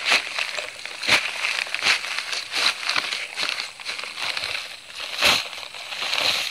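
Paper bag of Quikrete fast-setting concrete mix crinkling and rustling as the dry mix is shaken out of it into a post hole, with repeated sharp crackles about once a second.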